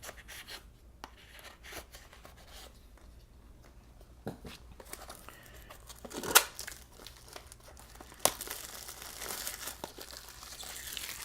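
Plastic shrink wrap being torn and peeled off a product box: scattered crinkles and small clicks, one sharp tear about six seconds in, then denser crinkling for the last few seconds.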